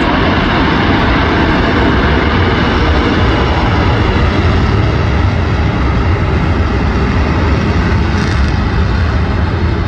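Propeller aircraft engines running, a loud steady rumble that does not let up.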